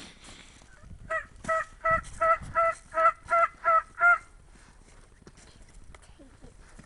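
A run of about ten evenly spaced turkey yelps, roughly three a second and steady in pitch, stopping about four seconds in.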